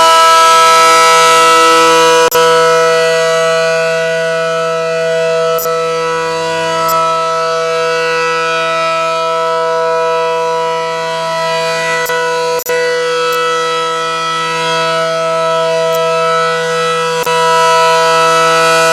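Allertor outdoor warning siren sounding its steady alert tone, one held pitch that slowly fades and swells again as the rotating siren head turns away and back. The audio drops out briefly twice.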